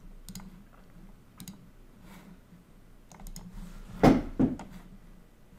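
A few faint clicks of a computer mouse and keyboard, with one louder knock about four seconds in, over a low steady hum.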